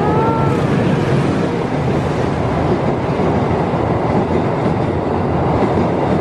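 The Argo Jati express passes close by on a steel truss railway bridge. Its diesel locomotive goes by at the start, then its stainless-steel coaches, with a loud, steady rumble and clatter of wheels on the rails.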